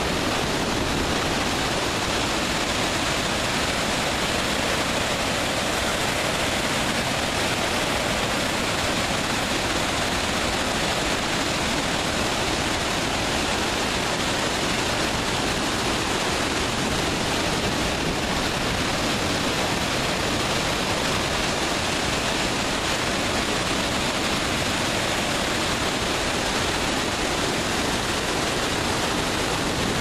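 Water pouring over the spillway of the Jatiluhur Dam and falling into the spillway basin: a steady, unbroken rush of falling water that stays even throughout.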